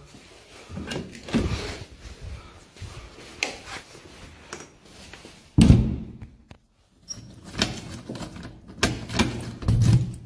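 A door being opened and shut, with a heavy thud about five and a half seconds in, then a quick run of clicks and rattling as a key turns in the door's lock.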